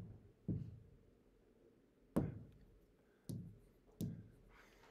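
Four irregularly spaced sharp taps of a hand or pen on the surface of an interactive whiteboard while writing on it, each dying away quickly.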